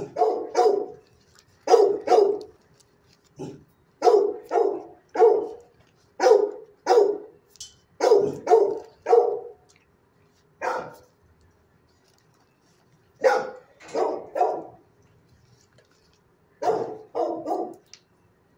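A shelter dog barking in its kennel in clusters of two to four quick barks, with pauses of a second or two between clusters and a single bark near the middle.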